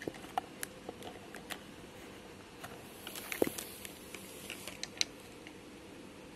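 Scattered light clicks and taps at an uneven pace, bunched near the middle with one sharper tap about three and a half seconds in, over a faint steady hum.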